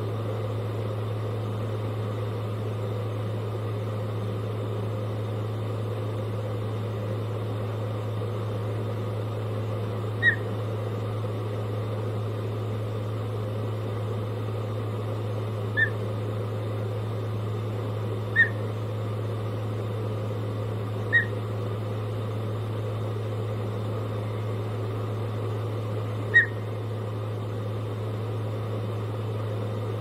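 Osprey giving five short, high whistled chirps, single notes spaced a few seconds apart, over a steady low hum.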